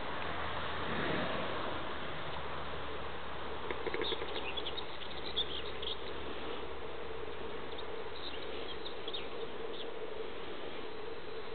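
Outdoor pond-side ambience: a steady hiss with a low insect-like buzz. Clusters of short, high chirps come near the middle and again later.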